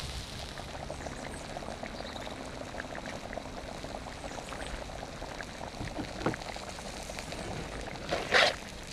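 Pot of soup bubbling steadily on the boil, with a small knock about six seconds in and a louder brief clatter near the end.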